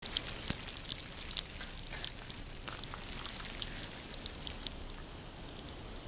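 Sleet pattering: irregular sharp ticks of ice pellets striking nearby surfaces over a steady hiss, thick in the first four and a half seconds and thinning out after.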